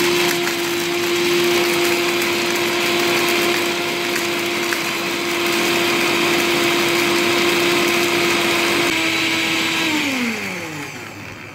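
Kenwood electric spice grinder grinding a load of whole spices (cloves, cinnamon, black peppercorns, cumin) to a fine powder: the motor runs with a loud, steady whine and blade whirr. Near the end it is switched off and winds down, the whine falling in pitch as it fades.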